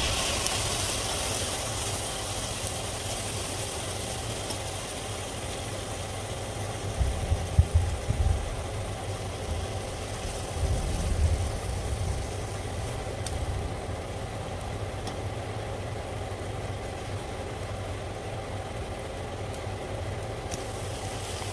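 Chopped onion and ginger sizzling in oil in a stainless steel frying pan, with a louder hiss in the first couple of seconds as cooking wine hits the hot pan, then a steadier sizzle while a spatula stirs. A steady low hum runs underneath, with a few low thumps about a third and halfway in.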